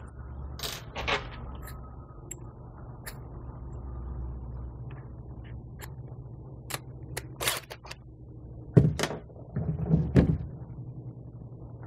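Bit being changed in a cordless drill's keyless chuck: scattered small clicks and rattles of the chuck and metal bit, with two heavier knocks about nine and ten seconds in as the drill is brought down to the deck.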